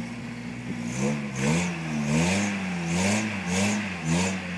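Lifted Toyota pickup's engine revving up and down in repeated surges, about six times after the first second, as the driver works the throttle trying to get up a slick, muddy clay bank.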